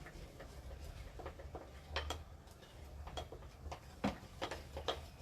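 A fork clicking and clinking against a bowl while pancake batter is stirred: irregular light ticks, a few a second.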